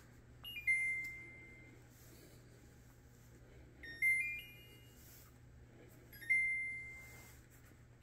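Samsung dishwasher's control panel chiming three times as its power button is pressed: short electronic melodies of a few notes, the first stepping down in pitch, the second stepping up, the third a single held tone. The chimes show the dishwasher has power again after its power switch was flipped back on.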